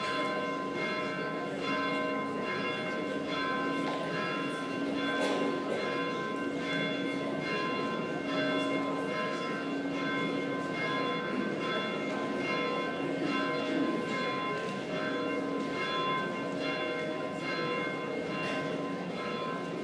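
Church bells ringing: several bells of different pitch struck over and over, their tones ringing on and overlapping.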